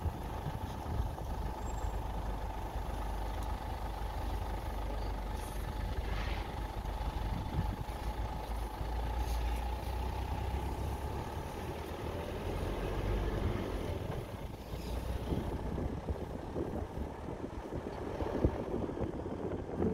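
Safari vehicle driving, its engine and road noise a steady low rumble with a few faint rattles.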